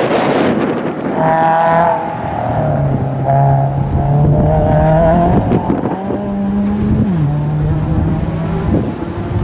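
Rally car engines running hard at high revs as the cars pass on a special stage. The engine note climbs and then drops suddenly about seven seconds in, a gear change.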